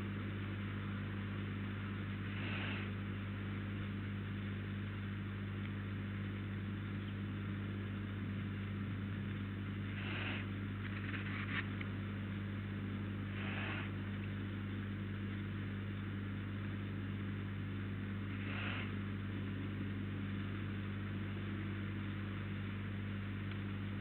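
Steady electrical hum from the camera's audio, with a handful of short, spread-out hisses over it.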